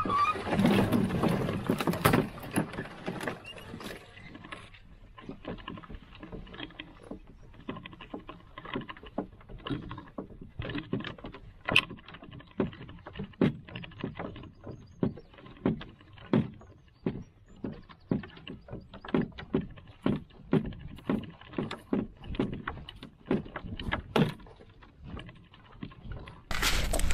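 Wooden canoe being walked by hand overland: branches brush and scrape along it for the first few seconds, then a steady run of footfalls and knocks, about one and a half a second, as it crosses grass and a shingle foreshore.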